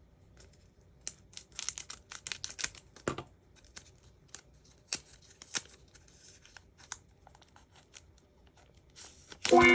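Foil Pokémon TCG booster pack being torn open and crinkled: a run of crackling rips about one to three seconds in, then scattered clicks and rustles of the wrapper and cards.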